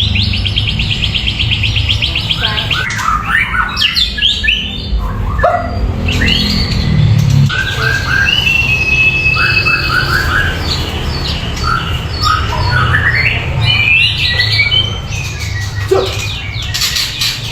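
A murai hutan songbird singing a long, varied song of clear whistles, rapid trills and quick clusters of short notes, with a steady low rumble underneath.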